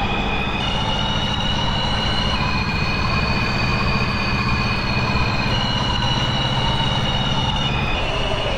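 New York City Subway 5 train running along the track, heard from inside the car. A steady low rumble runs under high squealing tones that shift in pitch, and a whine rises and then falls.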